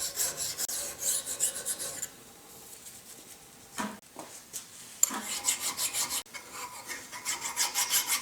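Rapid back-and-forth rasping strokes of hand work on metal, about four a second, in two runs with a quieter pause of about three seconds and a couple of short knocks between them.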